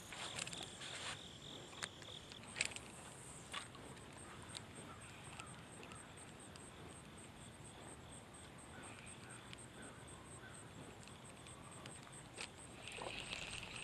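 Insects chirping in a faint, steady, high pulsing trill. A few soft clicks and knocks come in the first few seconds.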